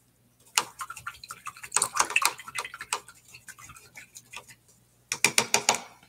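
A crumpled paper towel crackling and rustling as it is handled, likely to wipe a paintbrush. It comes in two bursts, a longer one at the start and a short one near the end.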